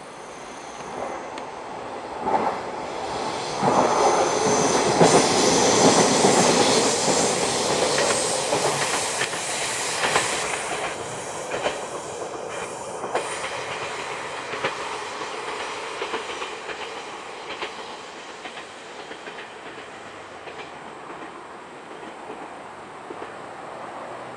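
Diesel local train passing by, growing louder to a peak in the first third, then fading as it moves away, with regular clickety-clack of its wheels over the rail joints as the cars go past.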